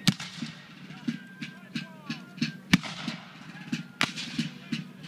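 Reenactors' black-powder musket fire: an irregular crackle of shots, two or three a second, with three louder reports standing out.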